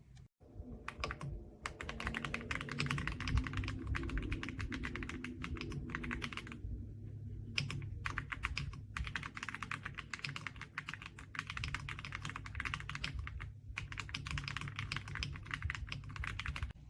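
AULA F99 mechanical keyboard with pre-lubed linear switches being typed on fast, a dense run of key clicks. The typing comes in three runs, with short pauses about six and a half and thirteen and a half seconds in.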